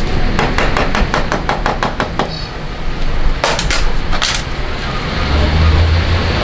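A quick run of about ten metallic clicks, about five a second, then a few louder clanks: hand tools working on motorcycle chain and sprocket parts.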